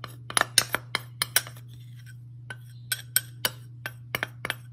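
Metal spoon clinking and scraping against a small glass bowl as starch is knocked out of it: a quick run of sharp clinks in the first second and a half, then another run from about three seconds in, over a steady low hum.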